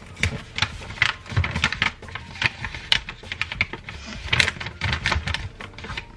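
Wrapping paper crinkling and crackling in quick, irregular bursts as it is folded and pressed by hand at the top of a wrapped gift box.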